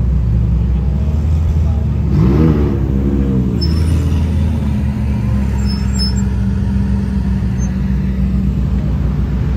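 Car engine running steadily, with one quick rev about two seconds in that rises and then falls back.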